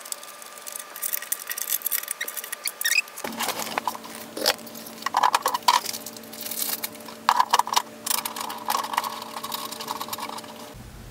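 Handling noise while fitting wheels to a portable fridge with a screwdriver: irregular clicks, taps and rattles of hard plastic parts and small metal screws, with some scraping.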